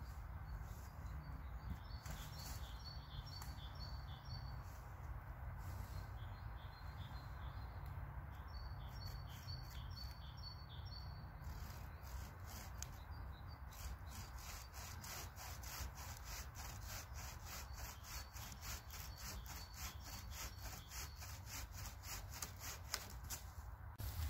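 Homemade bucksaw with a 21-inch blade cutting through a branch in fast, regular back-and-forth strokes from about halfway in. Birds chirp in the first half.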